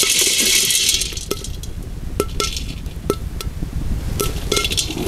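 Dry peas toasting in a pot, stirred with a stick: a brief rattling rush of peas sliding over each other for about the first second, then scattered sharp clicks and pops as the hot peas crack open.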